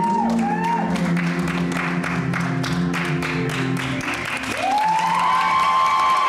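A recorded song plays and ends about four seconds in. The audience then starts applauding, with a long high tone rising in and held over the clapping.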